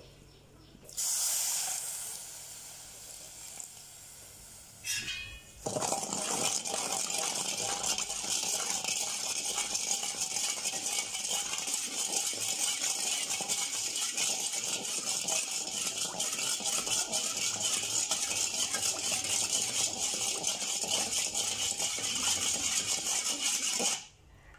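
Water poured onto sugar in an aluminium pot about a second in, then a metal slotted spoon stirring and scraping against the pot in quick, steady strokes that stop near the end, dissolving the sugar into syrup.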